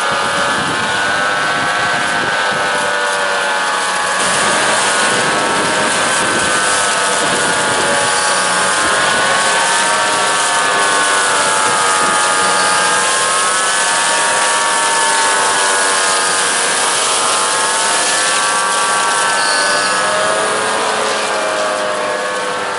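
GreenTec RC 162 rotor hedge cutter on a tractor's boom arm running as it trims a hedge: a high whine that wavers up and down in pitch over a steady rushing noise.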